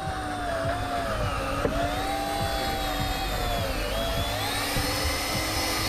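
Electric fishing reel's motor winding in line, a whine that wavers slowly up and down in pitch over a steady lower hum.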